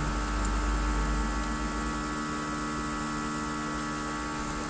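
A steady hum of several held tones over a low rumble.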